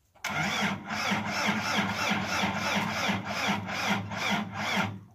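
Zetor 10540 tractor's four-cylinder diesel being cranked by its starter motor on a cold start, turning over with an even beat of about four compression pulses a second. The cranking stops about five seconds in.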